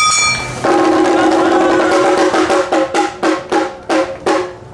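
Awa odori festival music: a bright ringing strike, then a long held note over drum strikes that gradually slow down.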